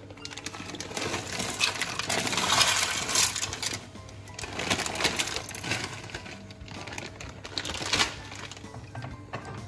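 Background music over the handling of a plastic bag of dry bow-tie pasta: rustling and dry rattling in bursts, loudest about two to three seconds in, again around the middle and briefly near the end.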